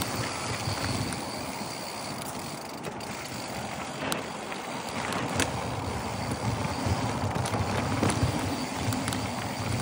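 Mountain bike riding down a dry dirt trail: a steady rush of knobby tyres rolling over loose dirt and gravel, with wind noise and scattered sharp clicks and knocks from the bike jolting over the ground.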